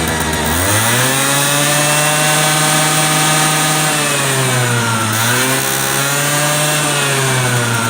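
Honda Live Dio AF34 scooter's small two-stroke single-cylinder engine being revved twice. Each time it rises from idle to a held higher speed for a few seconds, then drops back. The engine is unserviced and listed as making an abnormal noise.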